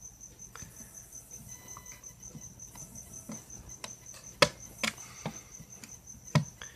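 Sharp clicks and taps of a screwdriver and small parts against an Xbox 360 hard drive's casing, loudest about four and a half seconds in and again near the end. Under them runs a steady, rapidly pulsing high chirp, like a cricket.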